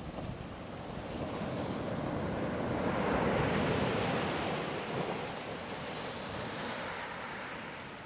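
Sea wave breaking on the beach: the rush of surf swells to a peak about halfway through, then fades into the hiss of foam washing over the shore.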